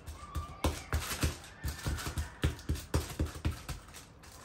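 Hands patting and pressing a ball of date paste flat under baking paper on a kitchen counter: a run of quick, uneven soft thumps with paper crackling, stopping shortly before the end.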